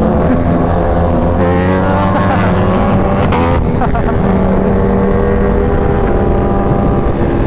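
Supercharged inline-four engine of a Kawasaki Ninja H2 with a Competition Werkes exhaust pulling hard under acceleration: its pitch climbs, then drops twice at upshifts, over a steady rush of wind.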